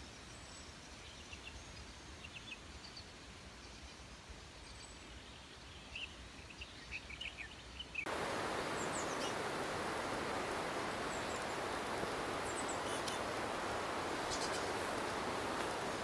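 Outdoor background noise with faint, short bird chirps. About eight seconds in it steps up suddenly to a louder, steady hiss with scattered brief high chirps and clicks.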